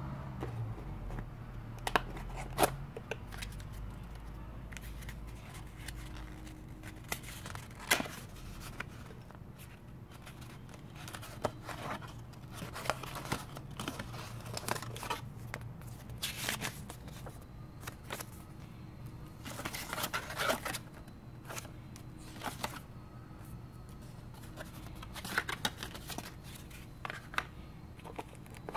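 Cardboard box, paper inserts and plastic wrapping of a tablet being handled: irregular rustling, crinkling and soft scrapes and knocks, in scattered clusters, over a faint steady low hum.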